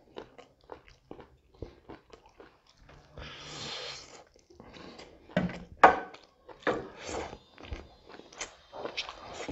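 Close-miked chewing and lip-smacking of a man eating pork with his fingers: a run of wet clicks and smacks, with a breathy rush about three seconds in and the loudest smacks around six seconds.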